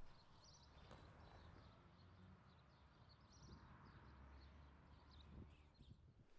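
Near silence: faint outdoor ambience with distant birds chirping now and then over a low background rumble.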